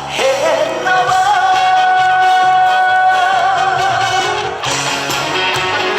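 A man sings a Korean trot song live over backing music. He finishes a phrase and holds one long note for about three and a half seconds, with a waver near its end. After that only the backing music continues.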